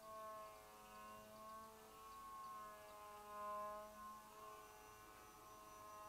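Faint whine of the electric motor and propeller of a HobbyKing Mad Bird RC flying wing in flight, its pitch drifting slowly up and down.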